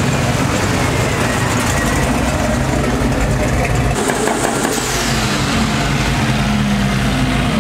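A late-1970s Pontiac Firebird Trans Am's V8 running loud as it pulls away from a burnout. About four seconds in it gives way to a small tuned hatchback's engine, revving up and rising in pitch near the end as the car drives past.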